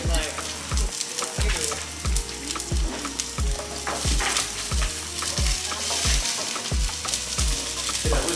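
Food sizzling in two woks on a portable gas stove, with spatulas stirring and scraping against the pans. A steady low drum beat of about two thumps a second runs underneath.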